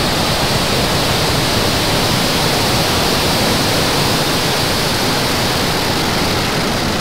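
The Falcon 9 first stage's nine Merlin 1D rocket engines at full thrust just after liftoff. The exhaust makes a loud, steady, rushing noise with no distinct tones.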